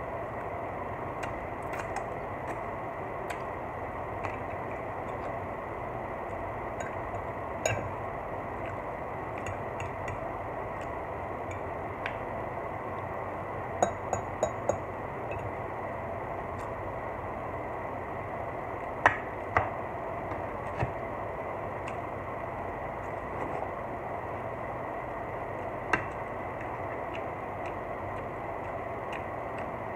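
A metal fork clinking and tapping against a glass baking dish during eating, a few scattered sharp clinks with the loudest about two-thirds of the way through, over a steady hiss.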